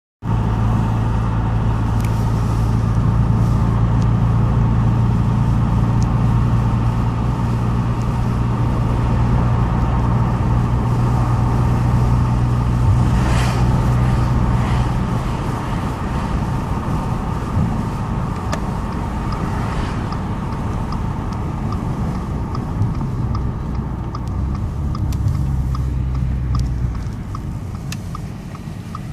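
Audi A5 3.2 FSI V6 with a custom exhaust, heard from inside the cabin, running with a steady low exhaust drone. The drone eases off a little after about halfway and swells briefly again near the end, when a light regular ticking comes in.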